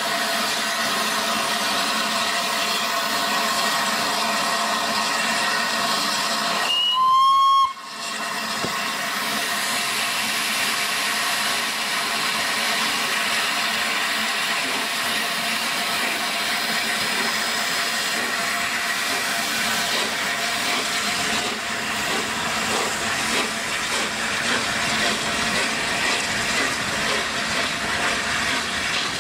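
A1 Pacific steam locomotive 60163 Tornado standing in steam, with a steady hiss of escaping steam, and one short, loud blast on its steam whistle about seven seconds in that cuts off sharply. Later a steam train is heard working away, the hiss rougher and more uneven.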